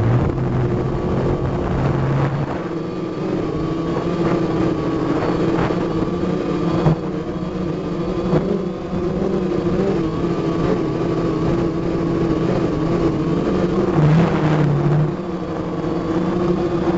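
Small drone's electric motors and propellers running steadily in flight, a hum with a slight wavering in pitch, mixed with a rush of air.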